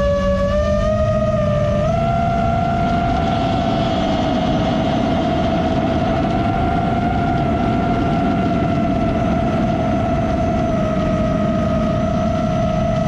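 Drone motors and propellers whining as heard by the drone's own onboard camera microphone: a steady high-pitched hum over rushing air. The pitch steps up about two seconds in as the throttle rises, then holds nearly level.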